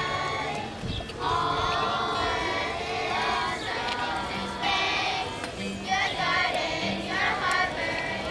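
A choir of third-grade children singing a song together, accompanied by guitar.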